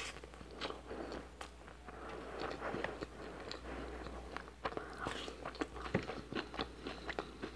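Close-miked eating sounds of a person chewing rice and biting raw cucumber slices: irregular crunches and wet mouth clicks throughout.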